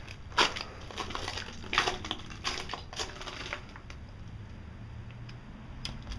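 Footsteps crunching on a dry bed of oyster shells and gravel, a handful of irregular crunches that thin out about halfway through.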